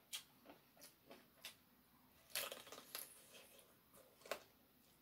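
Bites and chewing of crispy-crusted fried chicken: scattered short crunches and mouth sounds, the loudest burst of crunching about halfway through and another sharp crunch near the end.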